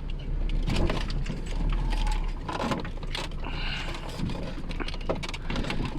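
Irregular mechanical clicks and clatter over a low steady rumble.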